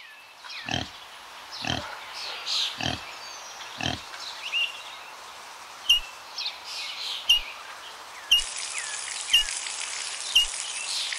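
Pig grunting four times, about a second apart, with high chirps over it. Later come a few light clicks, then, about eight seconds in, a steady hiss of water running from a small pipe into a plastic basin.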